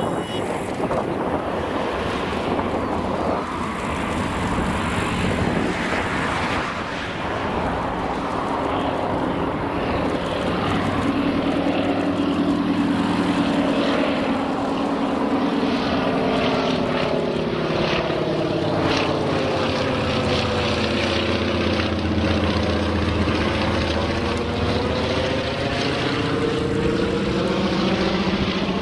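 Antonov An-2 biplane's nine-cylinder radial engine and propeller droning as it flies low overhead, growing louder as it approaches, then falling in pitch as it passes and climbs away.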